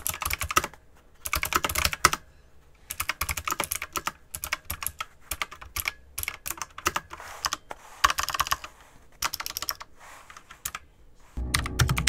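Fast typing on a Razer BlackWidow X Tournament Edition mechanical keyboard fitted with round, typewriter-style doubleshot keycaps: rapid key clacks in bursts with short pauses between them. Near the end, music comes in under the typing.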